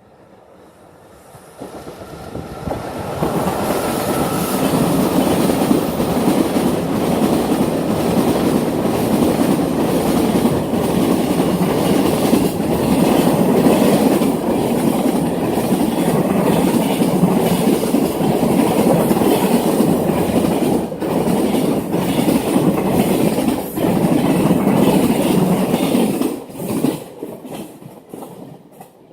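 Freight train passing close by at speed, its wheels clattering steadily over the rail joints. The sound builds about two seconds in and drops away near the end as the last wagons go by.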